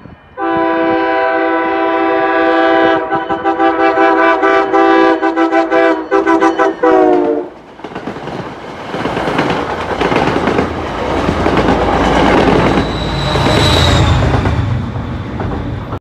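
MBTA commuter train's multi-note air horn sounding a long blast, then a rapid string of short blasts as it approaches, the chord sliding down in pitch as it passes. Then the train runs through, its wheels clattering and rumbling over the rails, with a brief high tone near the end.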